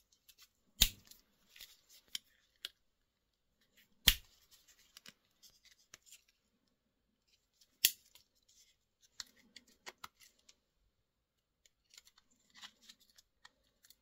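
Victorinox Rescue Tool pocket knife's fold-out tools being worked on their spring joints. Three sharp metallic snaps come a few seconds apart, the sound of tools springing open or shut. Lighter clicks and the scrape of the tools against the handle fill the gaps between them.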